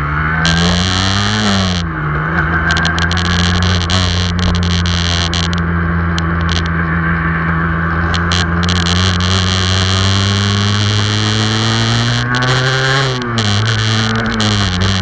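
Aprilia RS 125's single-cylinder two-stroke engine heard from the rider's seat under way: the revs climb and drop back about two seconds in, then rise slowly for a long stretch before climbing and dropping again near the end. Wind rushes over the microphone throughout.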